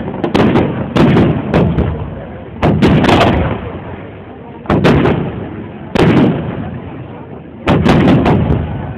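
Fireworks display: aerial shells bursting overhead in quick clusters of loud bangs, roughly every second or two, each dying away in a rumble.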